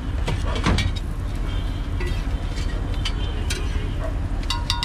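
Sharp, scattered clicks and taps of metal cooking utensils against a large flat griddle and eggs, over a steady low rumble, with a quick cluster of taps near the end.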